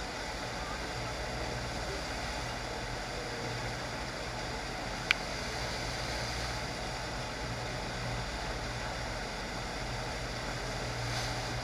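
Steady rush of water from a FlowRider surf machine's sheet wave, with a constant low hum underneath. One sharp click about five seconds in.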